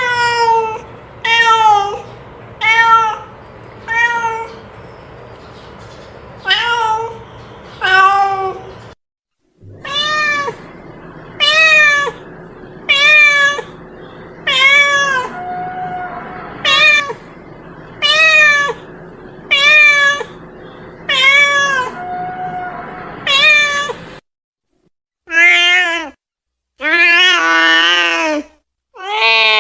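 A domestic cat meowing over and over, one short rising-and-falling meow about every second and a half, with a brief pause about a third of the way through. Near the end the calls turn into a few longer, wavering yowls.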